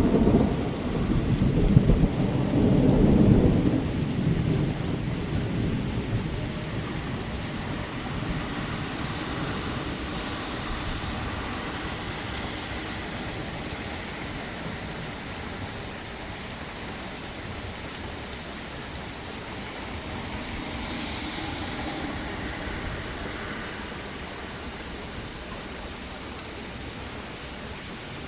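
Thunder rumbling low and loud in the first few seconds, then rolling away, over heavy rain pouring down steadily.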